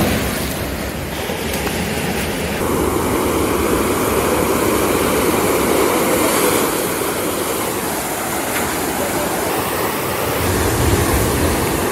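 Sea surf breaking on a rock seawall, a steady wash of noise.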